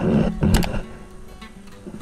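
Background music with guitar, broken in the first second by a loud burst of noise with a sharp knock about half a second in.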